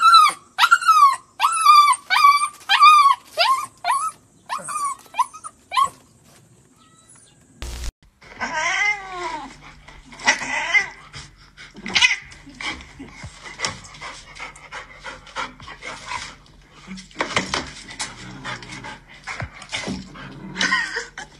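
A puppy whining and whimpering in short, high, rising-and-falling cries about twice a second, fading away about six seconds in. After a short lull, a mix of other sounds follows, with a few drawn-out calls and scattered knocks.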